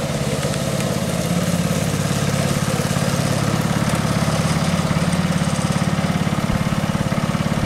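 Go-kart's small pull-start engine running steadily as the kart drives along, an even, rapid chugging at a constant speed.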